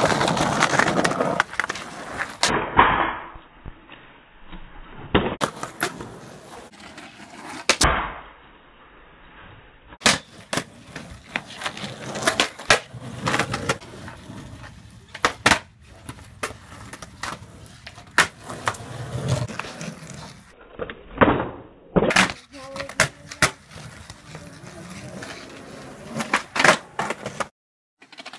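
Skateboard wheels rolling on rough concrete, with many sharp clacks of the tail popping and the board landing during flatground and flatbar tricks.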